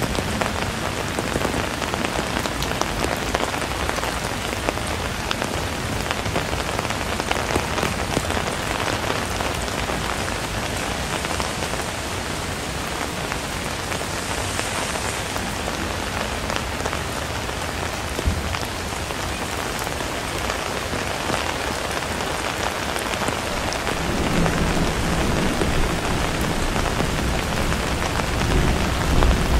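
Steady rain falling on the street and nearby surfaces, with individual drops ticking close by. A low rumble joins in over the last few seconds.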